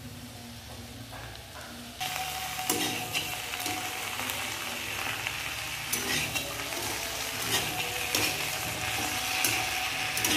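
Pork, potatoes and sliced tomatoes sizzling as they fry in a kadai, stirred with a spatula that scrapes and clicks against the pan. The sizzle gets louder about two seconds in.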